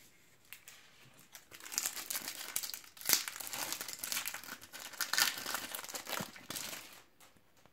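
Panini Adrenalyn XL foil card sachet being crinkled and torn open by hand: a run of crackling foil from about two seconds in until near the end, with one sharper crack about three seconds in.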